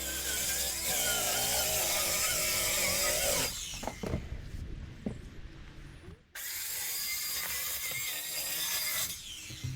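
A power tool running in two long bursts of about three seconds each, with a few knocks in the quieter gap between them.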